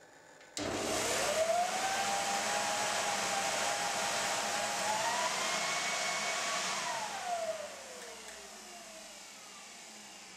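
Electric blower switched on suddenly, forcing air through a small air turbine model in a tube. A loud rush of air carries a whine that climbs quickly, holds, and rises again about halfway through. Late on the airflow drops away and the whine glides down as it spins down.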